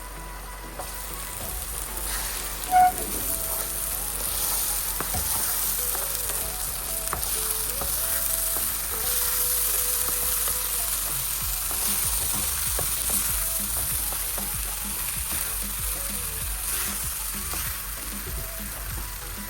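Freekeh and sliced onions sizzling in a hot pot as they are stirred and toasted with spices, before any water goes in. About three seconds in there is one sharp ringing clink, loudest of all.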